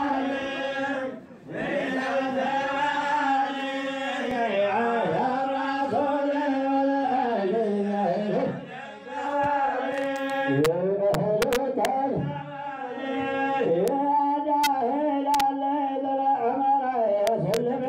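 Chanted singing: a wavering, gliding melody line over a steady held drone note, with a brief break about a second in and a few sharp clicks in the second half.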